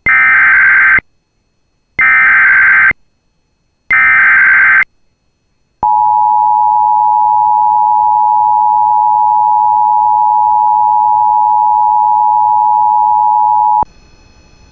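Emergency Alert System header: three one-second bursts of warbling digital data tones, about two seconds apart, followed by the steady attention tone held for about eight seconds. These announce an incoming severe thunderstorm warning.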